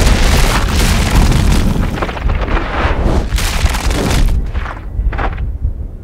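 Cinematic sound-design effects: deep booms with swells of rushing noise, several in a row, that thin out near the end.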